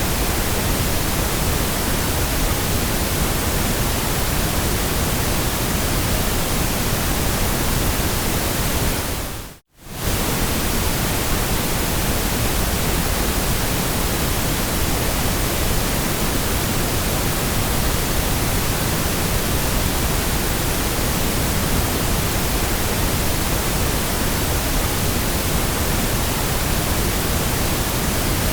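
Steady white noise, an even hiss spread across all pitches. About ten seconds in it fades out to near silence for a split second, then comes straight back.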